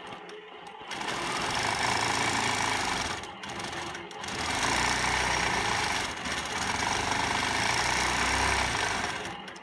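Hand-guided longarm quilting machine stitching free-motion, running steadily. It starts about a second in, dips briefly twice around three to four seconds in, and stops just before the end.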